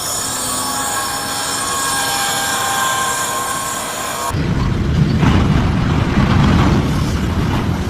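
A high squeal made of several steady tones over a hiss, like metal grinding or dragging on metal. About four seconds in it cuts off abruptly to a loud, low rumbling noise.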